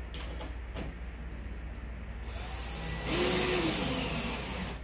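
Cordless drill/driver driving a screw through a mini-split's metal wall-mounting plate, its motor running from a little past halfway through and then stopping just before the end. A few light clicks of handling come before it.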